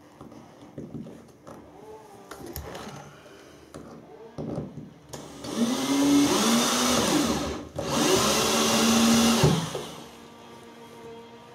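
Cordless drill drilling into the floor for the toilet pan's fixing screws, in two runs of about two seconds each with a brief stop between, starting about five seconds in. Before the drilling, only faint handling sounds.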